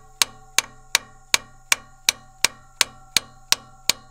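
Brass mallet tapping steadily on a stuck valve in an old V8's cylinder head, about three sharp metallic strikes a second, each with a short ring. The valve is stuck down from rust and is being worked so that its spring can push it back up.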